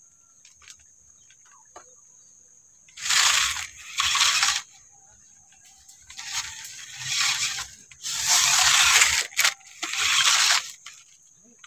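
RC off-road truck driving in about six short bursts of throttle, its tyres scrabbling and crunching over loose dirt and twigs.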